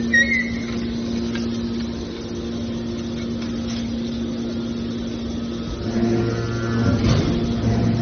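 Hydraulic scrap metal baler's power unit running with a steady hum while its ejection cylinder pushes a compressed bale of scrap out. About six seconds in, a deeper hum joins and the sound grows louder, with a brief rough noise near seven seconds.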